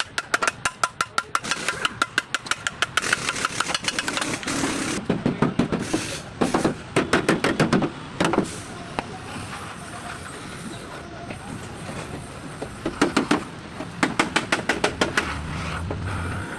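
A rapid series of sharp knocks, about four or five a second, coming in bursts with short pauses between.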